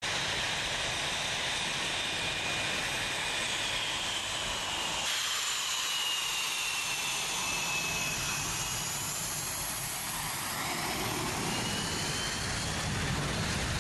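Jet fighter engines running loud: a dense rush with a high whine that slides slowly down in pitch and later rises again. The sound changes abruptly about five seconds in, and the low rumble grows stronger near the end.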